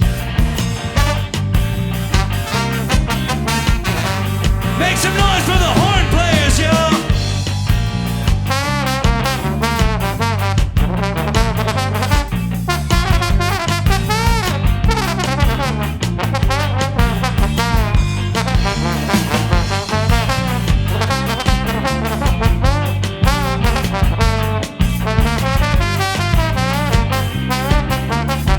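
Live ska band with a horn section of alto sax, trombone and trumpet over electric bass and drum kit, playing at a steady up-tempo swing. A busy horn run rises and falls about five seconds in.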